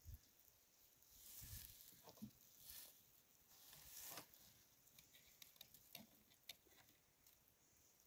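Faint rustling of dry hay and baler twine being handled while the twine is tied off around a freshly pressed bale, with a few light clicks and ticks.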